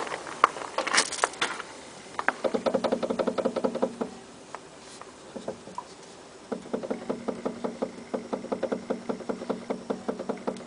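Rapid light knocking from the front wheel area of a Y11 Nissan Wingroad, coming in two runs of about eight knocks a second with a pause between, over a steady hum. The knock comes from play in the front brake caliper slide pins.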